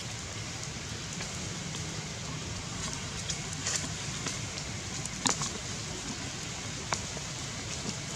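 Steady outdoor background hiss with a few short, faint clicks and ticks in the second half.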